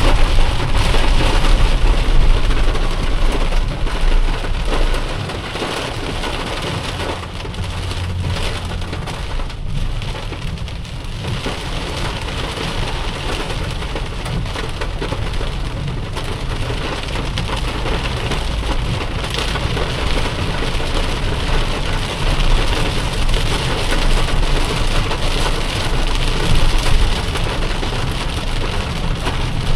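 Heavy rain falling steadily on a moving car, an even hiss. A deep rumble is strongest over the first five seconds or so, then fades.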